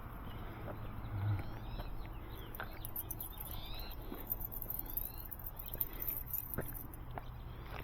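Birds chirping in short rising and falling calls, with scattered light clicks and jingles and a low steady rumble underneath.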